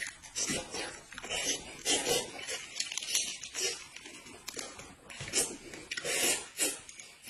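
Close-miked eating sounds, irregular chewing and mouth noises, mixed with the crinkle of a small plastic sachet being torn open and handled.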